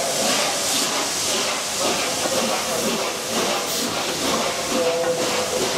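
Class A1 Pacific steam locomotive 60163 Tornado hissing steam, a steady, loud rushing hiss. A fainter mid-pitched ringing tone runs under it at the start and again near the end.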